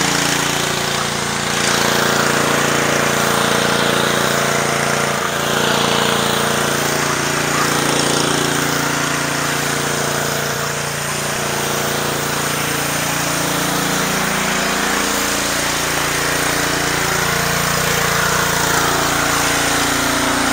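Honda GCV190 single-cylinder engine of a gas pressure washer running steadily, with the hiss of water jets from a pressure-washer water broom spraying concrete.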